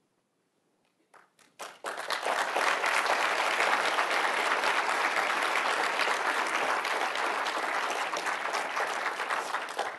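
Audience applauding. After about a second of near silence, a few scattered claps come, then full applause from about two seconds in, thinning out near the end.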